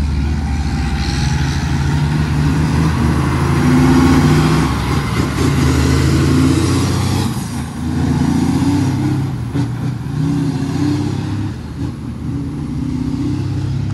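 Heavy truck's diesel engine pulling under power. It eases off briefly about halfway through, then picks up again.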